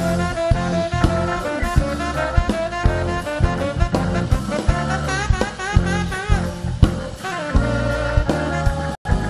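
Live jazz band playing an instrumental: a saxophone melody with wavering, bending notes over acoustic guitar, electric bass and drum kit. The sound drops out for an instant near the end.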